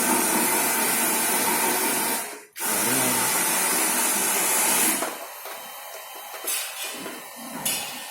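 Hand-held air gun hissing in two long blasts of about two seconds each, cut off sharply between them, then quieter workshop noise.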